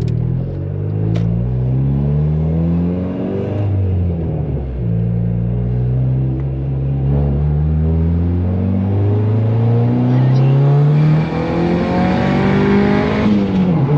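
Turbocharged Honda D15B four-cylinder under hard acceleration, heard from inside the cabin: revs climb, drop at a gear shift about four seconds in, climb again for a long pull and drop at another shift near the end. The run is a test of quick-spool boost control set at 10.5 psi.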